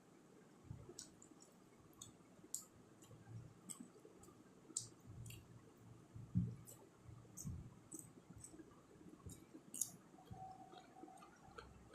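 Faint, irregular mouth clicks and lip smacks of a person chewing while eating.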